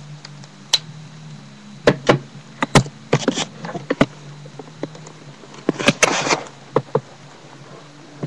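Irregular sharp clicks and knocks, some in short rattling clusters, over a low steady hum.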